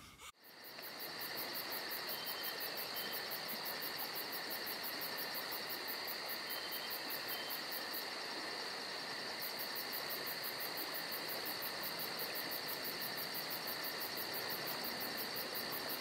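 Steady insect chorus: a fast, even pulsing over two held high tones, the pulsing dropping out briefly about halfway through.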